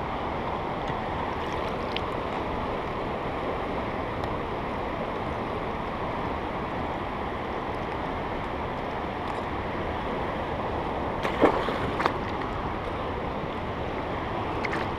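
Steady rush of a river flowing over rapids. Two brief knocks come close together about three-quarters of the way through.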